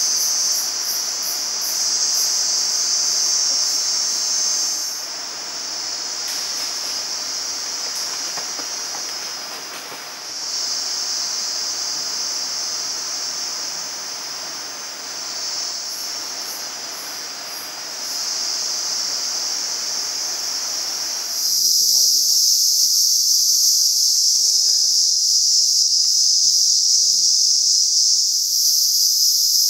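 Dense, high-pitched chorus of forest insects, a steady buzzing that swells and fades every few seconds. About two-thirds of the way through, a lower background hiss cuts out abruptly and the chorus grows louder.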